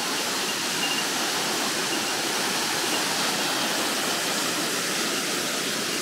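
A 30 m waterfall pouring down, a steady, forceful rush of falling water.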